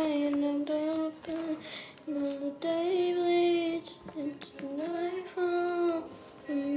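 A young girl singing unaccompanied, holding long notes and sliding between pitches, with short breaks between phrases.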